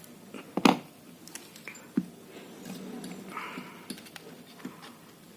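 Tools handled on a repair bench while desoldering a resistor from a circuit board: a sharp double click a little under a second in, another sharp click at about two seconds, and scattered light ticks and taps.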